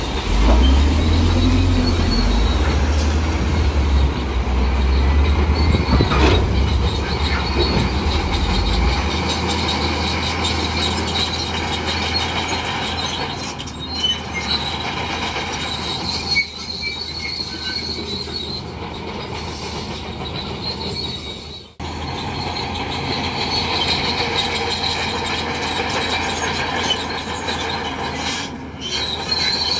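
Bulldozer at work: its diesel engine running under load, with the steady high squeal and clatter of its steel tracks. A heavy low rumble fades after about nine seconds, and the sound cuts out for a split second about two-thirds of the way through.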